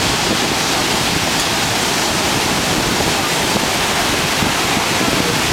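Heavy ocean surf breaking and washing up a sandy beach: a steady, loud rushing.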